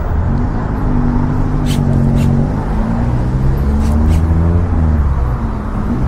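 A road vehicle's engine running close by, its pitch shifting up and down and loudest a little after halfway. A few short sharp clicks sound over it.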